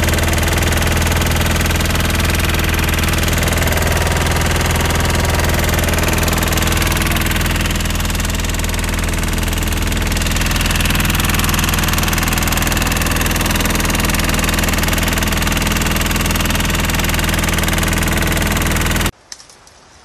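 An engine running steadily at a constant speed, with a loud hiss over it; it cuts off suddenly about a second before the end.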